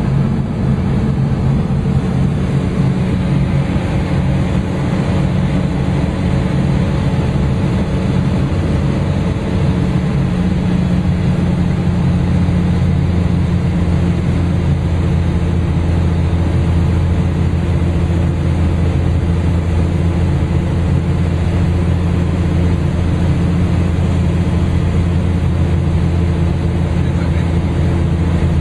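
Cabin drone of a Cessna 400 Corvallis in flight: its turbocharged Continental TSIO-550 six-cylinder engine and propeller running at a steady cruise power, heard from inside the cockpit with airflow noise. The low hum grows a little stronger about twelve seconds in.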